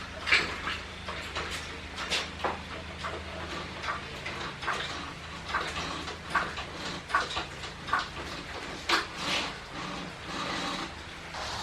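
Irregular knocks, clicks and rustles of objects being handled, about a dozen separate strokes, over a low steady hum that fades out about four or five seconds in.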